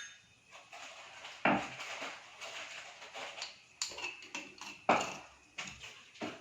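Fresh ginger being crushed with a hand crushing tool: irregular knocks, the loudest about one and a half seconds and about five seconds in.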